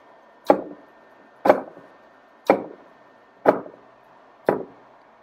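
Servo motor run by a Geckodrive G320X drive, reversing direction about once a second. Each reversal gives a sharp knock with a short decaying tail, five knocks in all.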